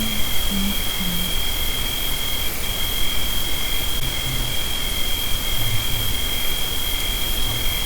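Night insects, crickets or katydids: one sings a steady unbroken high trill while another chirps in regular pulses just below it, under loud hiss from a heavily amplified recording.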